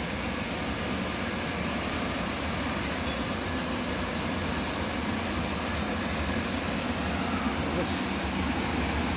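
JR West 923 series Doctor Yellow Shinkansen pulling slowly into a station: a steady rumble of wheels on rail with a high hiss above it.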